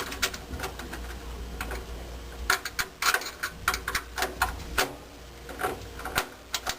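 Irregular small metallic clicks and taps of a screwdriver and sheet-metal screws being handled at a furnace pressure-switch bracket, coming in clusters around the middle and near the end.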